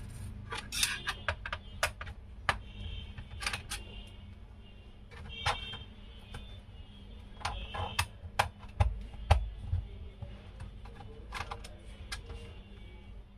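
Irregular sharp clicks, taps and scrapes of a thin metal tool and hands on a laptop's plastic bottom case, the loudest knocks coming about nine seconds in. A faint steady hum sits underneath.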